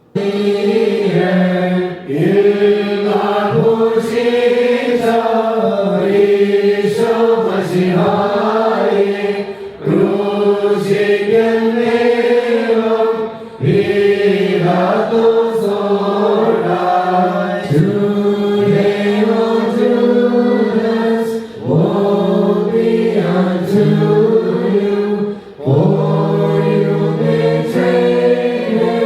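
Choir and congregation chanting an Indian Orthodox liturgical hymn together in unison, unaccompanied, in long sung phrases with brief pauses for breath between them.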